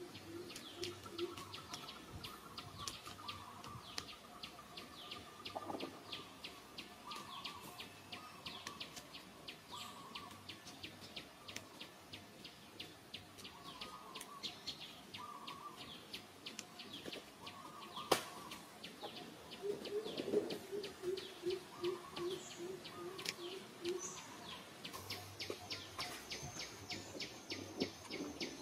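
Forest birds calling over rapid high chirping that never stops. A run of low, evenly repeated hoots, about five a second, comes at the start and again about twenty seconds in, and a single sharp click stands out about eighteen seconds in.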